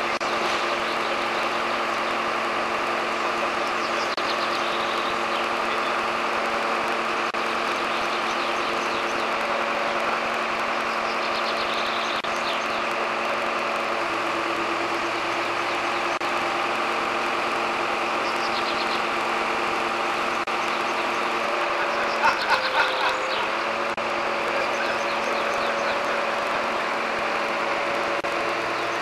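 A crane truck's engine runs at a steady pitch while the crane handles a piano on its hook. About three-quarters of the way through there are a few short, louder pulses.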